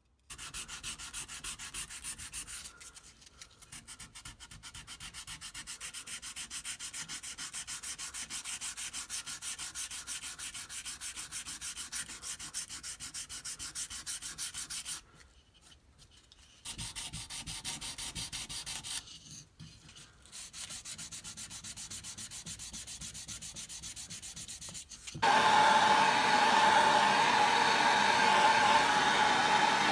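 Knife handle scales being sanded by hand with sandpaper: rapid back-and-forth rubbing strokes, with two short pauses. About 25 seconds in, a louder steady whirring noise with a humming tone takes over.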